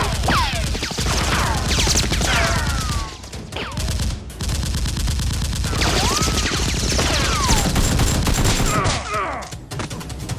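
Continuous rapid gunfire sound effects, automatic bursts dubbed over a Nerf battle, with repeated falling ricochet-like whines over the shots and a brief lull about three seconds in.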